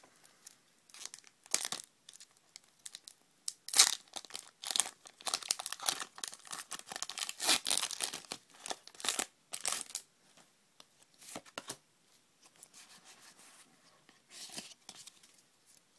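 The foil wrapper of a Pokémon Noble Victories booster pack being crinkled and torn open, in irregular crackling bursts that are loudest in the middle. Quieter rustles follow near the end as the cards are handled.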